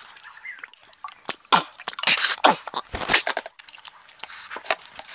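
Close-miked mukbang eating sounds: wet, smacking chewing of fried pork and rice, with irregular squelching clicks and smacks as the hand works the rice and curry on the plate. A dull knock about three seconds in.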